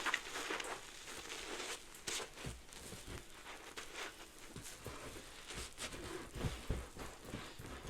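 A soapy sponge soaked in Fabuloso cleaner and Mr. Bubble bubble bath being squeezed, the suds crackling in irregular fizzy clicks, with a few soft low thumps.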